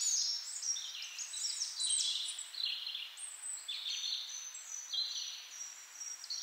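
Several birds calling and singing at once: many short, high, overlapping chirps, some sweeping down in pitch.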